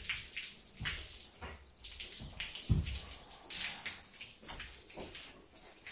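Water from a garden hose spraying onto a horse's coat and splashing onto a wet concrete floor, coming in uneven gushes. A single dull thump sounds about halfway through.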